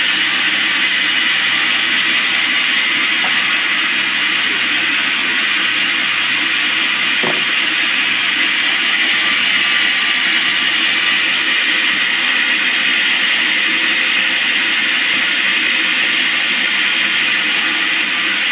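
Band sawmill running steadily, a continuous even machine noise with a faint low hum beneath.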